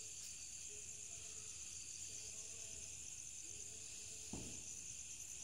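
Night insects chirring in a steady, high-pitched chorus, with one soft knock about four seconds in.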